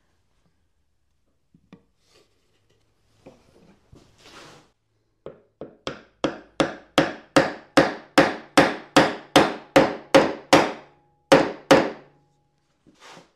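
A hammer tapping a glued square wooden peg into a round hole in a sapele board: a rapid run of about twenty taps, about three a second, starting light and growing firmer, with a short pause before two final taps.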